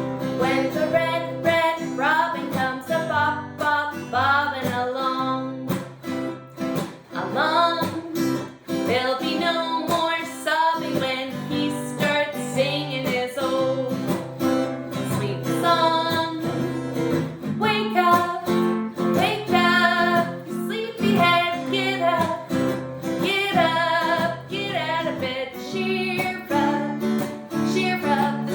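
Strummed acoustic guitar accompanying a woman singing a sing-along song.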